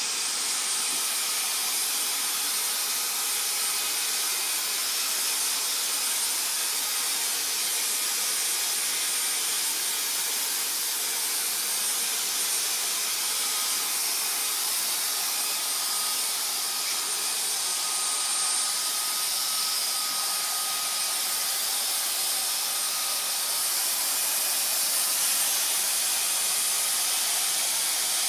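Dyson cordless handheld vacuum switched on right at the start and running steadily: a rushing air hiss with a thin high-pitched whine, its nozzle drawn along a cat's fur.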